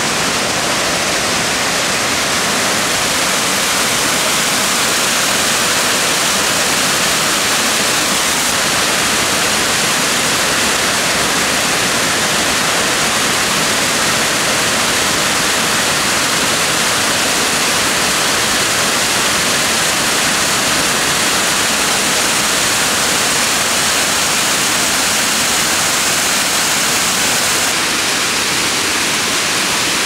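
A waterfall, water pouring steadily into a pool, a continuous even hiss with no break.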